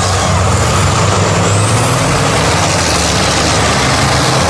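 Heavy off-road trial trucks' engines running loud and steady as they drive through deep mud.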